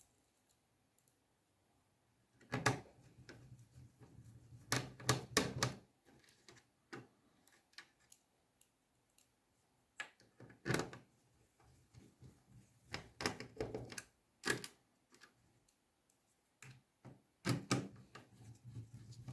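Irregular small clicks and knocks of a laptop's cooling fan being seated back on the motherboard and screwed down, starting about two seconds in.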